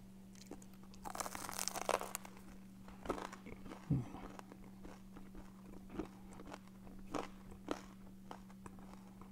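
Crunchy bite into a deep-fried chicken spiral curry puff, its flaky layered crust crackling, loudest about a second in, then chewing with small crackles. A faint steady hum runs underneath.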